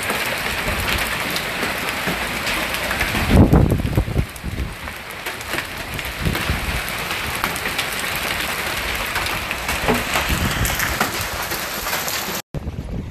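Hail and rain pelting down: a dense steady hiss dotted with sharp ticks of hailstones striking. A deep rumble swells about three and a half seconds in. The sound cuts off suddenly near the end.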